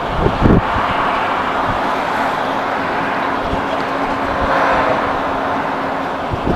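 Truck cab noise while cruising on the highway: the diesel engine and road noise blend into a steady drone with a constant tone. A couple of low thumps come about half a second in.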